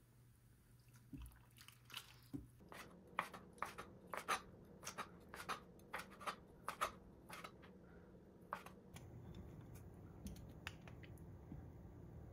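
Chef's knife chopping blanched squid on a plastic cutting board: a run of sharp, irregular knocks, about two a second, starting a couple of seconds in and lasting several seconds. Near the end a low steady hum takes over.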